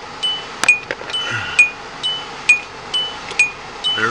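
A car's electronic warning chime repeating a short two-note ding about once a second.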